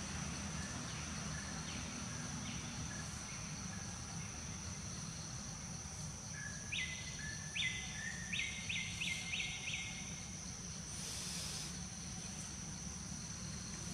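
Outdoor tree-canopy ambience: a steady low rumble under a thin, high, steady insect drone. About seven seconds in comes a quick run of about six short, high bird calls, and a brief hiss follows about eleven seconds in.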